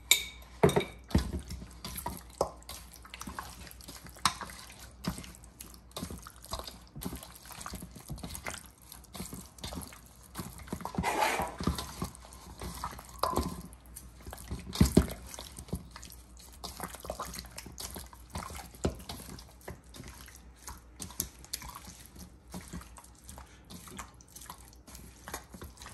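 Irregular dripping with small clicks and taps, and a few louder knocks.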